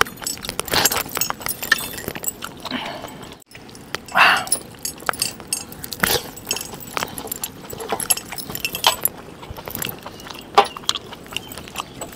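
Heavy metal bracelets and rings jingling and clinking as cooked mutton is torn apart by hand and eaten: a string of small, sharp, irregular clinks.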